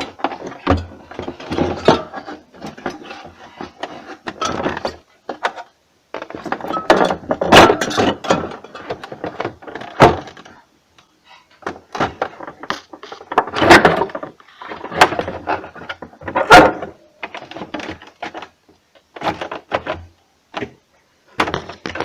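A refrigerator's cover panel being handled and fitted back into place: irregular knocks, clicks and rattles in clusters, with a few sharper loud strikes.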